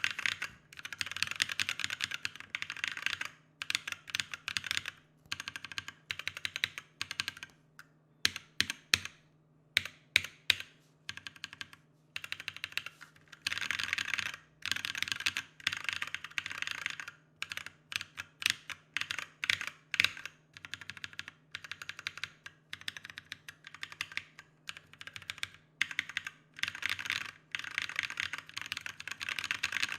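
Tactile mechanical keyboard switches being typed on in bursts, with some slower single presses: unlubed Glorious Panda switches, their spring noise audible, alongside lubed trash Panda switches.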